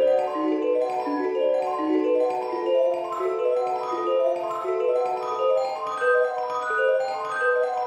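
Background music: a melody of short, quick notes on mallet percussion.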